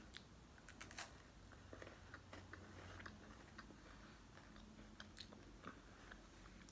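Faint crunching of a chocolate-covered wafer candy being bitten and chewed: a scatter of small, irregular crisp clicks.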